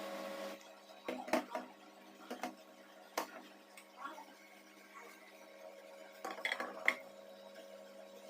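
Kitchen items being handled: a few sharp knocks and clinks of hard plastic and metal parts, with a cluster of clinks near the end, over a steady low hum.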